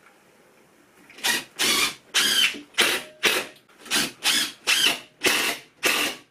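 A workshop tool working in a run of short repeated mechanical strokes, about two a second, starting about a second in.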